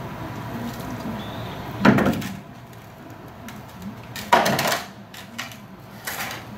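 Loud clattering knocks of scrap items being moved and set down: one about two seconds in, a longer, louder clatter around four and a half seconds, and a softer knock near the end.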